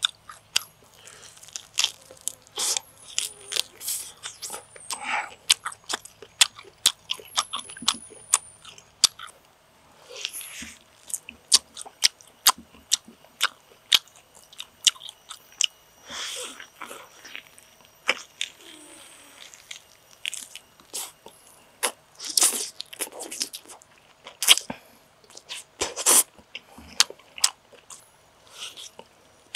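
Close-up chewing and biting of roast duck: wet mouth smacks and crunchy bites as many sharp clicks in quick, irregular succession.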